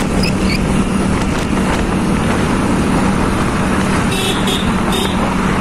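Motorcycle riding at steady cruising speed: the engine holds a constant hum under a continuous rushing of wind and road noise. A few short high chirps sound about four seconds in.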